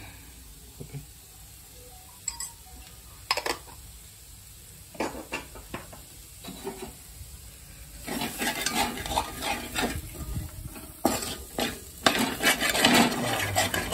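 Metal spatula stirring and scraping a frying spice-and-vegetable mixture in an aluminium pot, with the food sizzling. A few isolated clicks come first; the steady scraping and clattering starts about eight seconds in.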